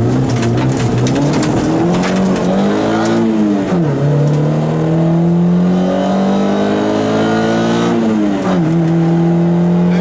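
Peugeot 106 rally car's engine, heard from inside the cabin, pulling hard under acceleration with its pitch climbing, then dropping at an upshift about four seconds in and again about eight and a half seconds in. A few sharp knocks come in the first two seconds.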